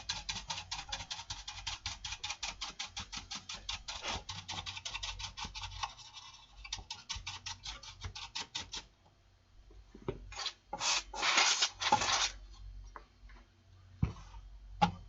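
A brush scrubbing the metal back panel of a power amplifier in rapid, even back-and-forth strokes, about seven a second, for roughly nine seconds. After a short pause comes a louder rush of scrubbing for about two seconds, then a few light knocks.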